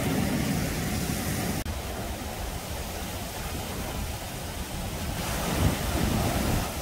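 Rough surf breaking and washing up a sandy beach in a steady roar of waves, with wind buffeting the microphone.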